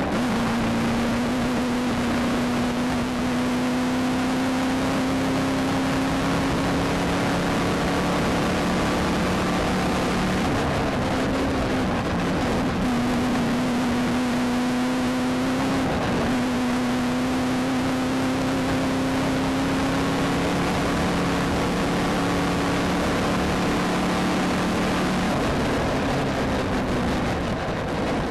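A desert off-road race car's engine running hard, heard from inside the car. It holds high revs and climbs slowly, with two short dips about twelve and sixteen seconds in, like lifts or gear changes. A constant hiss of wind and rough ground runs underneath.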